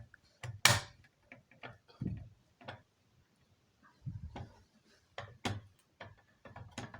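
Irregular clicks and dull knocks of a plastic Gentex Commander 3 fire alarm horn strobe being handled and pressed into its mounting, its snap-in parts clicking into place.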